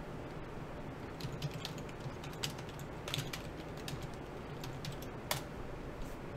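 Typing on a computer keyboard: scattered, irregular keystrokes, with one sharper click about five seconds in.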